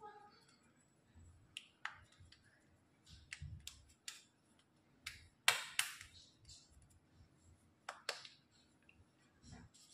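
Faint, scattered taps and clicks of hands patting and pressing small rounds of biscuit dough flat on butter paper in a metal tray, with a few soft thumps and the sharpest clicks a little past halfway.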